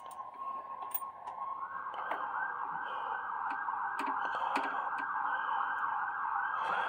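An electronic siren: a steady held tone that switches about two seconds in to a fast warbling yelp, repeating several times a second.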